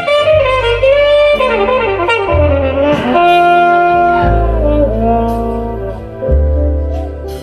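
Live band music with a horn playing a solo melody line in sliding, bending phrases over held bass notes.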